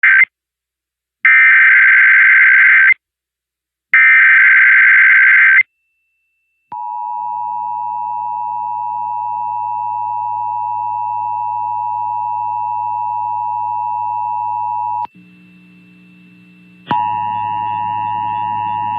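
Emergency Alert System SAME header: three loud bursts of digital data tones, the first cut short, each about a second and a half long with short silences between. After a pause the steady EAS attention tone sounds for about eight seconds, drops out briefly, and returns louder near the end, announcing a required monthly test.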